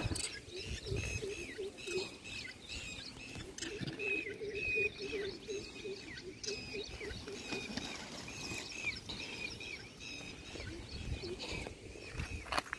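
Birds chirping over and over, with a run of quick, lower short calls in the middle, over the soft rustling and pattering of a troop of rhesus macaques feeding on grain scattered on gravel.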